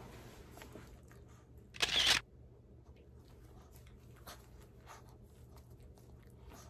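A single short, sharp burst of noise, under half a second long, about two seconds in, followed by a few faint clicks and handling sounds at a low level.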